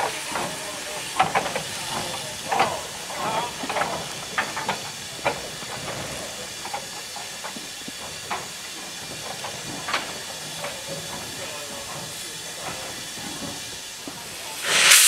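Peckett saddle tank steam locomotive standing in steam, hissing steadily, with occasional short knocks. Near the end a loud rush of steam starts as the cylinder drain cocks are blown through.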